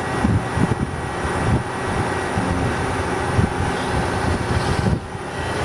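DoAll automatic horizontal bandsaw running under power, its head feeding down through a steel bar toward the bottom of the cut: a steady machine hum with irregular low knocks, dipping briefly about five seconds in.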